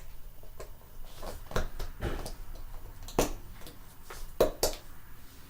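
Several sharp, short clicks and knocks, scattered a second or so apart, from stiff O'Neal Rider off-road riding boots being handled and moved in while being tried on.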